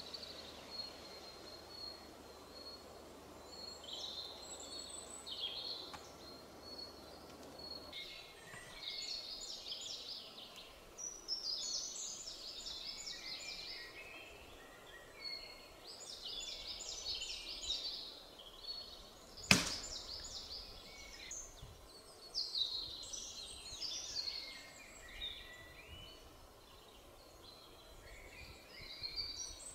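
A songbird singing in repeated high, warbling phrases of a second or two, a few seconds apart. One sharp knock about two-thirds of the way through is the loudest sound.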